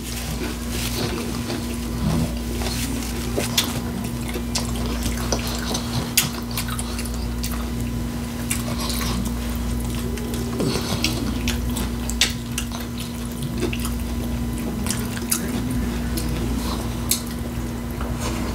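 Close-miked eating sounds: wet chewing and crunching of a taco salad topped with Flamin' Hot Doritos, with scattered sharp clicks of a utensil against the dish. A steady low hum runs underneath.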